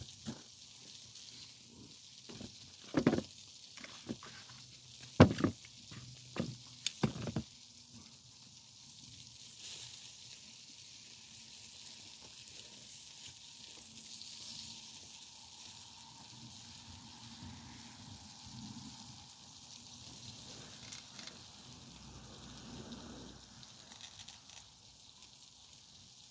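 Food sizzling over a wood fire: a steady high hiss, with a few sharp clicks in the first eight seconds.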